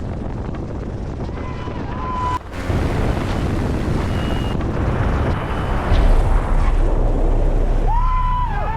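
Light aircraft engine running under a steady rush of wind noise, with a deep rumble growing from about halfway in. Short electronic tones sound twice, the second one gliding up and down near the end.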